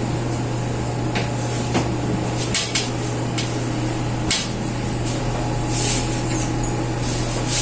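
A few short sharp clicks and knocks of kitchen items being handled and set down, over a steady low hum.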